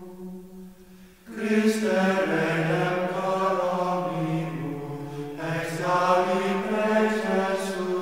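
Plainchant sung by men's voices in unison, one slow melody line with long held notes. A phrase dies away in the first second, then a new phrase begins about a second in and another about five seconds in.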